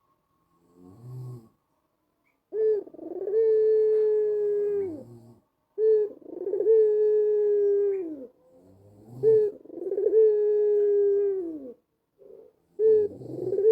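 White ringneck dove (puter putih kalung hitam) giving its long advertising coo (anggungan): three drawn-out coos at a steady low pitch, each opened by a short note and dipping at the end, with a fourth starting near the end.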